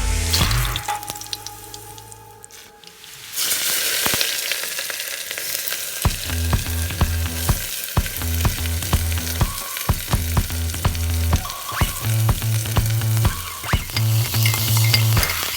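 Curry ingredients sizzling in hot oil in a cooking pan, with a spoon stirring and clicking against the pan. The sizzle starts about three seconds in, after a brief quiet stretch.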